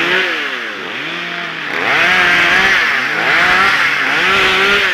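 Gasoline chainsaw running loud, its engine revving up and falling back about every second and a half as the throttle is worked.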